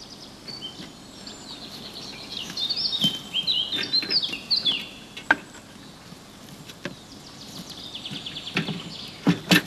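Birds singing, with bursts of quick high chirps in the first half and a trill later on, over a steady outdoor background. A few sharp knocks cut in, the loudest one near the end.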